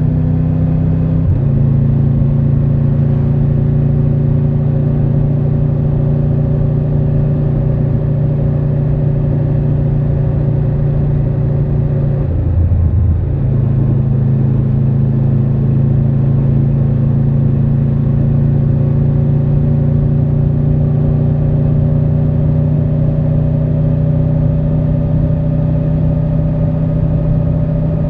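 Triumph Tiger 1200 Rally Pro's three-cylinder engine running at steady revs under way, with a brief dip in the note about twelve seconds in before it settles back to the same pitch.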